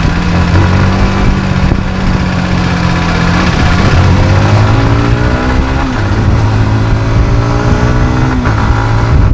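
Yamaha MT-15's single-cylinder engine running under way, steady at first, then climbing in pitch through the second half as the bike accelerates. A rush of wind noise on the camera mic runs under it.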